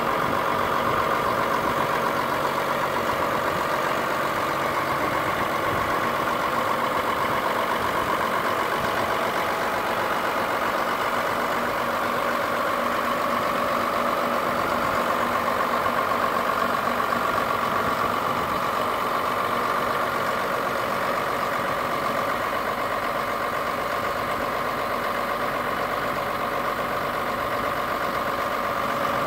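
White 6124 tractor's diesel engine idling steadily.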